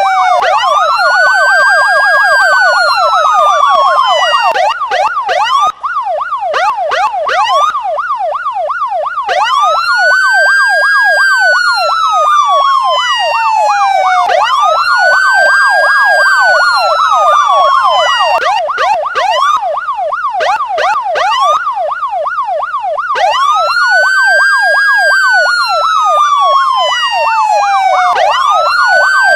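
Electronic police siren sounding continuously. It alternates between a wail that climbs quickly and falls slowly over about four seconds and stretches of fast yelping warble, layered over a quicker warble throughout.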